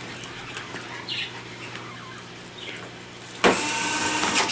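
Cordless electric screwdrivers turning screws in a TV's sheet-metal back chassis: a few faint clicks, then about three and a half seconds in a small motor whines steadily for over a second.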